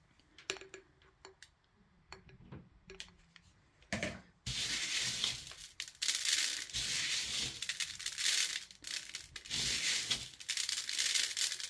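Fake clay sprinkles falling by the handful onto a glued bottle neck and the metal baking tray beneath. A few scattered small clicks come first, then from about four and a half seconds in a continuous rattling hiss with short breaks.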